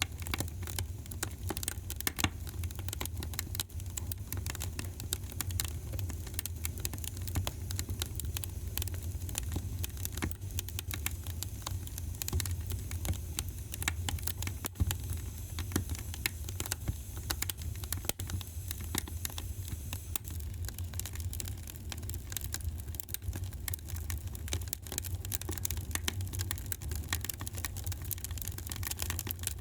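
Wood fire crackling in a fireplace: many sharp pops and snaps over a steady low rumble of the burning fire.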